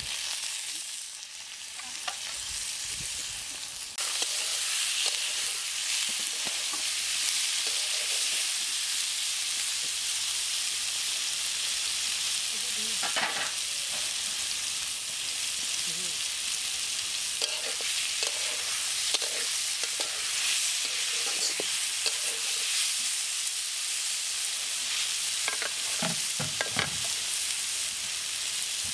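Green banana pieces frying in hot oil in an iron wok, a steady sizzle that gets louder about four seconds in. A spatula scrapes and knocks against the pan now and then as the pieces are stirred.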